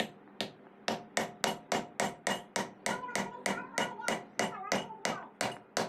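A hammer striking a metal part of a reduction gearbox in a steady run of even blows, about four a second, each with a short metallic ring.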